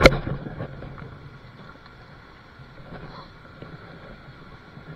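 A single sharp knock right at the start, then a steady low rush of outdoor wind noise with a few faint small ticks.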